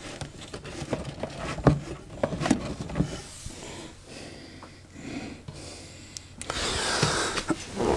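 Handling noises from cables being pulled and felt for behind a wooden TV cabinet: scattered knocks, clicks and rubbing, with a longer rustling noise near the end.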